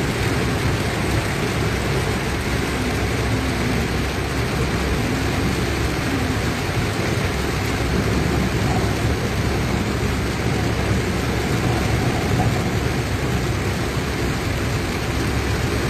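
Heavy rain beating steadily on a car's roof and windshield, heard from inside the cabin over the car's running and wet-road noise.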